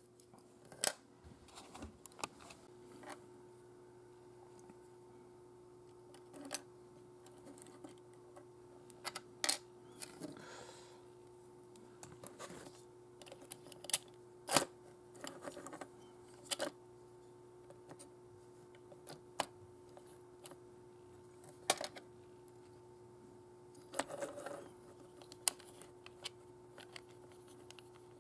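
Small plastic and metal parts of a Mazinger Z Hover Pilder model being handled and fitted with tweezers: scattered irregular clicks and light taps, over a steady faint hum.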